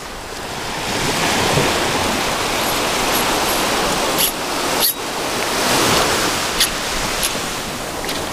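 Small surf waves washing up and draining back over a sandy beach at the shoreline, swelling and easing in a steady wash, with a few light clicks in the second half.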